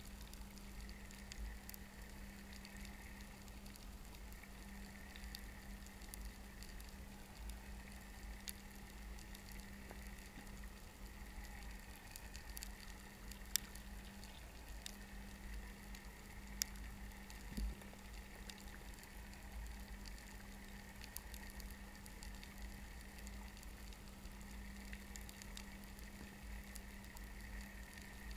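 Faint underwater ambience picked up through a camera's waterproof housing: a fizzing crackle of scattered small clicks over a steady low hum, with a few sharper clicks about halfway through.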